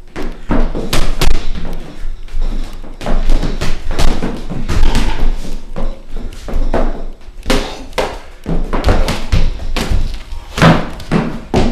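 High-heeled shoes stepping, stamping and shuffling on a hardwood floor during shadowboxing footwork: a loud, irregular run of heel clacks and thuds.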